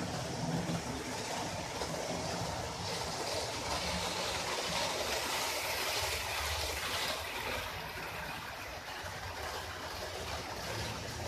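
Model train running past on a layout: a steady rumbling hiss of wheels on the track and the motor, loudest about four to seven seconds in as it passes close, then easing.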